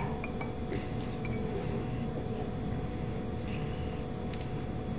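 Metal spoon clinking against a drinking glass as orange juice is stirred: a few light clinks in the first second or so and a couple more near the end, over a steady low background rumble and hum.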